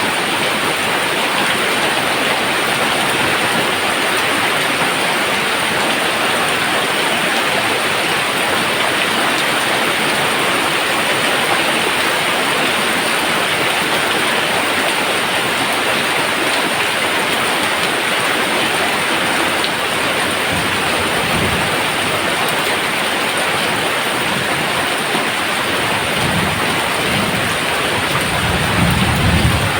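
Heavy rain falling steadily in a dense hiss. Low thunder rumbles come in about two-thirds of the way through and are loudest near the end.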